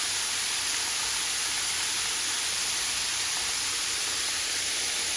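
Flour-coated chicken pieces frying in hot grease: a steady, even sizzle.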